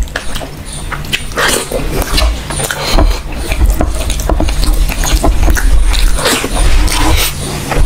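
Close-miked eating sounds: wet chewing and lip smacking with irregular squelches, as fingers work curry-soaked rice and a chicken leg is bitten into.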